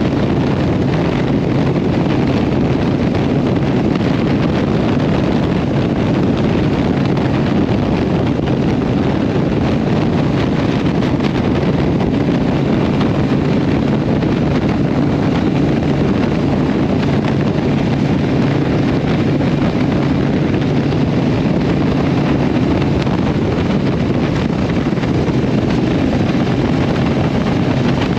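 Harley-Davidson Iron 883's air-cooled V-twin running through a Vance & Hines exhaust, held steady at a cruise of about 50 mph, with wind rushing over the microphone.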